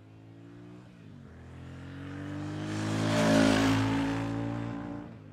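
Royal Enfield Shotgun 650's 648cc parallel-twin engine as the motorcycle rides past, its exhaust note growing louder to a peak a little after the middle and then fading away.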